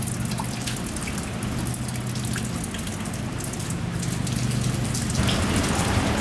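Heavy rain falling, with many separate drops striking close by and a steady low hum underneath.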